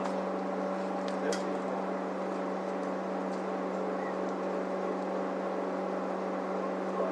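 Steady machine hum from a running motor, holding one pitch, with a couple of light clicks about a second in.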